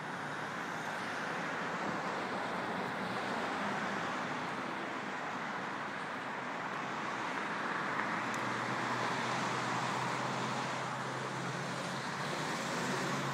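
Steady road traffic noise with a low hum underneath, swelling slightly about two thirds of the way through.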